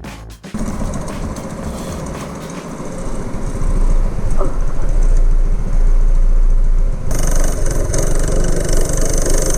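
A go-kart's 212cc single-cylinder engine with a Stage 1 kit, running under way and getting louder from about three seconds in. The sound changes abruptly about seven seconds in.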